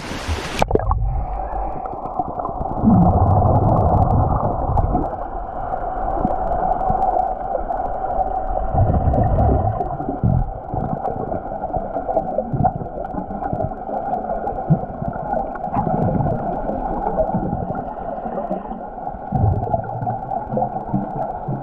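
Pool sound heard through a camera going underwater: less than a second in, the open-air splash noise cuts off and gives way to a muffled, steady underwater hum with gurgling and dull low surges as swimmers move.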